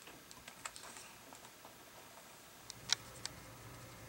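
Faint, scattered clicks and taps of a paintbrush and paint palette being handled during painting, with one sharper click about three seconds in, over quiet room tone.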